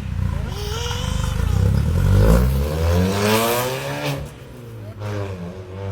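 Ford Fiesta 1.4 with a custom free-flow exhaust being revved: the engine climbs in pitch to a peak about three and a half seconds in, then drops back to a steady idle, with a short blip of the throttle near the end.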